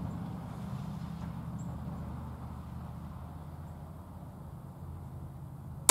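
A steady low engine drone that slowly fades, then a single sharp snap right at the end as the Ravin R10 crossbow fires.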